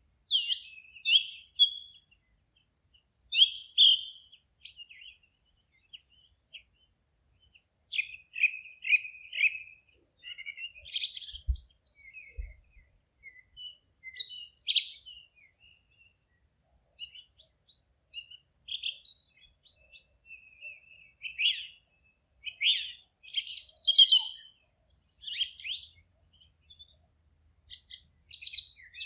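Songbirds singing: short phrases of chirps and trills, high-pitched, coming every second or two with brief quiet gaps between.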